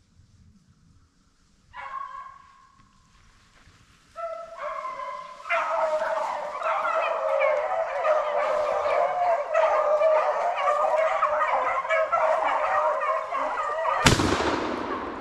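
A pack of rabbit hounds baying on a rabbit's trail: one short bay about two seconds in, more voices joining at about four seconds, then the whole pack in full cry. Near the end a single loud shotgun shot goes off over the baying.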